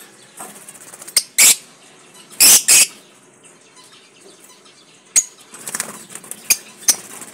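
Lovebirds flapping their wings as they flutter about the cage: a few short whooshes, the loudest a pair about two and a half seconds in, and a sharp tap about five seconds in.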